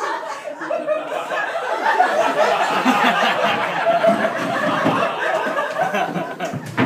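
Theatre audience laughing loudly and steadily, many voices at once, with a single knock near the end.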